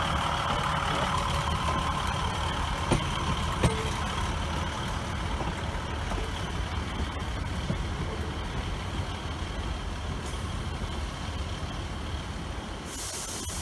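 Single-car Class 153 diesel railcar pulling away, its underfloor diesel engine running with a steady low rumble that slowly fades as the unit draws off. Its wheels click sharply over the rail joints twice a few seconds in.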